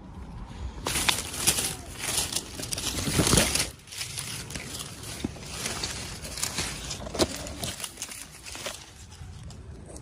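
Plastic packaging crinkling and rustling as it is handled and opened, densest for the first few seconds, then lighter rustles and small clicks.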